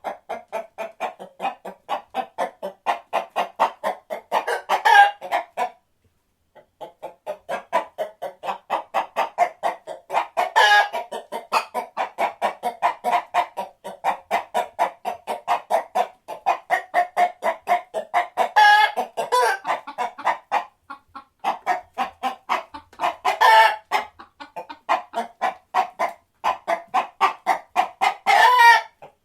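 Chickens clucking in a quick, steady run of about four clucks a second, broken every few seconds by a louder, drawn-out squawk, five times in all, with one brief pause about six seconds in.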